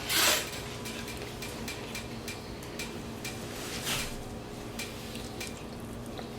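Tableware being handled during a meal: small clicks and taps of utensils on dishes, with two brief louder noisy sounds, one at the start and one about four seconds in, over a steady low hum.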